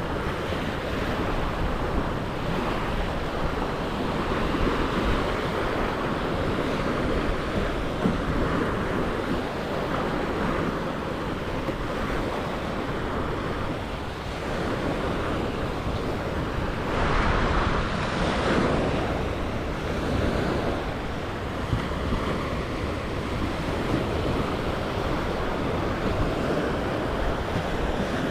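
Surf washing onto a beach, with wind buffeting the microphone; the waves swell loudest about two-thirds of the way through.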